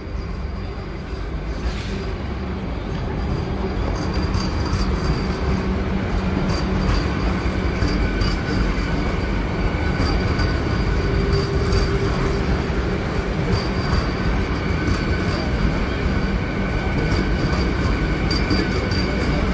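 Vande Bharat Express electric train rolling along the platform, the rumble of its wheels on the rails growing louder over the first few seconds as it comes alongside, then holding steady as the coaches run past.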